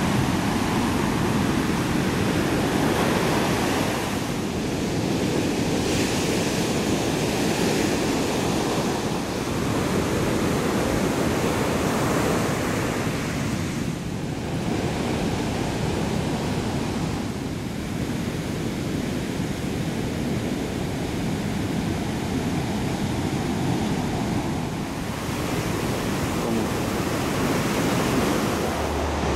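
Heavy storm surf breaking and washing up a sandy beach: a continuous rushing noise of waves that shifts in level several times.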